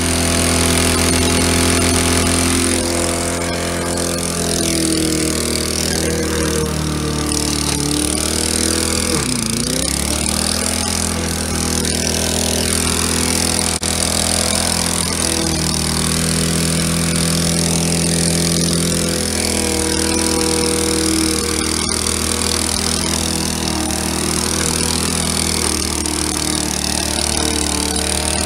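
Briggs & Stratton Quantum single-cylinder side-valve lawnmower engine running steadily at full throttle. Its speed sags briefly about nine seconds in, then picks back up.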